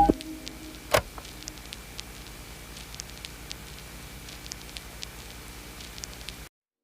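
Faint crackling hiss with scattered soft clicks and one louder click about a second in, cutting off abruptly near the end.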